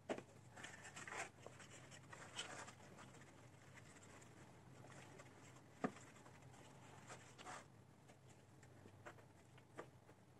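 Faint rustling and scraping of hands working potting soil around a plant in a pot, with scattered soft clicks and one sharper knock about six seconds in.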